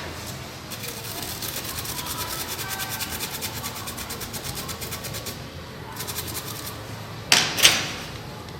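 A small brush scrubbing a smartphone logic board in quick, even strokes, cleaning off scraped-away underfill glue residue. Two short, loud, hissing bursts come close together near the end.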